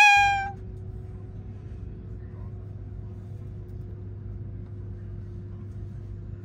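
A short, bright pitched sound effect with a slightly falling pitch opens, then a steady low rumble of a moving vehicle heard from inside the cabin, with a faint steady hum over it.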